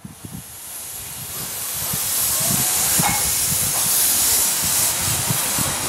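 Narrow-gauge steam tank locomotive pulling away with its cylinder drain cocks open, blowing steam. A loud steady hiss builds over the first two seconds, with soft irregular low chuffs beneath.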